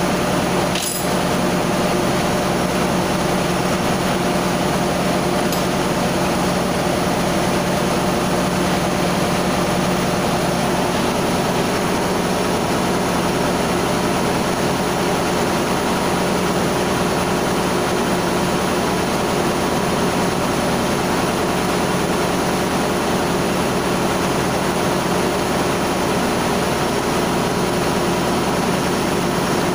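Steady drone of ship's engine-room machinery running, a constant hum with a low steady tone; one short click about a second in.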